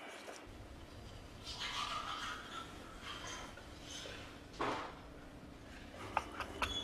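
Faint room noise, with a soft rustle and a short louder scrape about two-thirds of the way through, then a few light clicks and knocks near the end.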